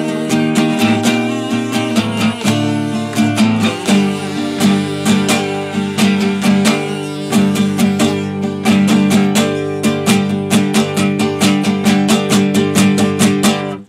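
Acoustic steel-string guitar strummed quickly and evenly in chords, shifting chord a couple of seconds in, then cutting off suddenly at the end.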